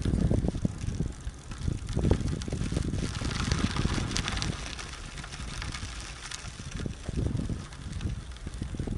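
Wind buffeting the microphone of a camera mounted on a moving KhVZ Start-Shosse road bicycle: an uneven, gusty low rumble with tyre noise from the road, and a stretch of hiss in the middle.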